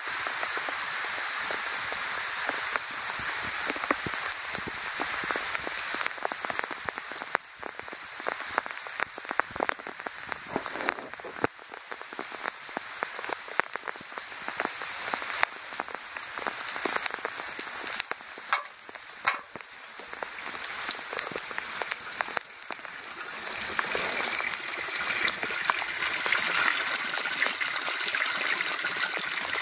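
Light rain falling steadily, with scattered sharp drips landing close by. Near the end a stream of rainwater pours from a PVC downspout pipe and splashes into a full rain barrel, growing louder.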